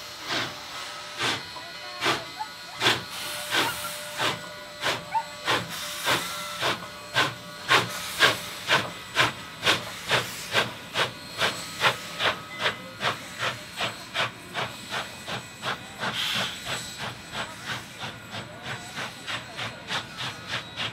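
Union Pacific No. 844, a 4-8-4 steam locomotive, pulling away, its exhaust chuffing over a steady steam hiss. The chuffs quicken from about one a second to about three a second as it gathers speed, and grow fainter near the end.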